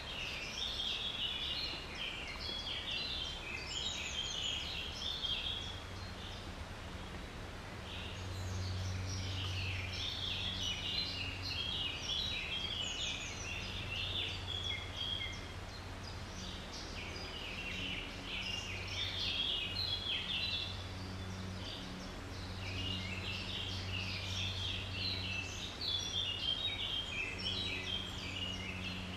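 Wild songbird singing: runs of quick high notes, each run lasting several seconds, separated by short pauses, over a faint steady low hum.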